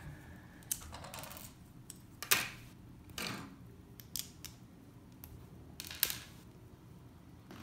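Plastic LEGO bricks clicking and clacking as they are handled and pressed together, several separate sharp clicks, the loudest about a third of the way in.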